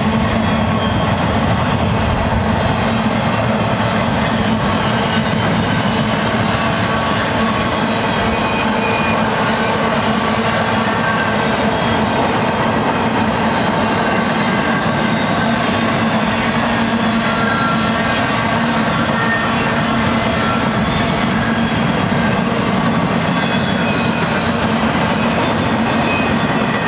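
Double-stack intermodal container train passing, its well cars rolling by in a steady rumble and clatter of wheels on rail.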